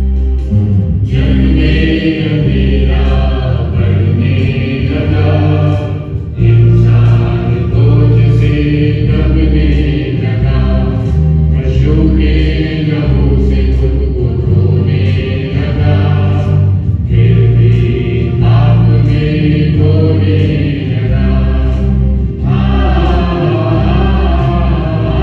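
A church worship group singing a hymn through the PA, with guitar accompaniment and a strong bass line. The singing comes in phrases of about five seconds, each followed by a short break.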